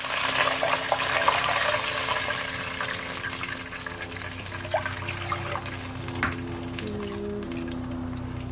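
Water being poured from a cup into a pot of whole spices, a steady rushing splash that is loudest in the first few seconds and then eases. Soft background music with sustained notes runs under it from about three seconds in.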